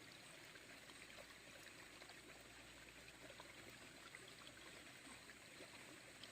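Faint, steady sound of a small stream's running water, near silence.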